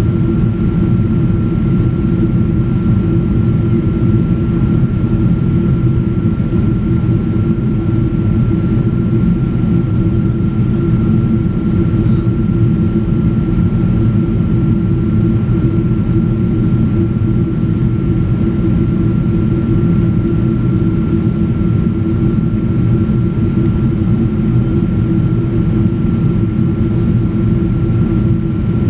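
Cabin noise of a Boeing 777-200ER in the climb after takeoff: the steady drone of its Rolls-Royce Trent engines and the rush of air, heard from a seat over the wing. A deep, even rumble with one thin steady hum above it.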